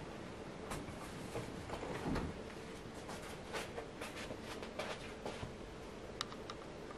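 Irregular light clicks and taps, with a dull low thump about two seconds in and two sharper clicks just after six seconds.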